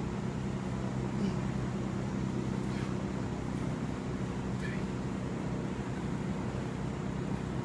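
Steady low mechanical hum, like room ventilation machinery, with a few faint light clicks.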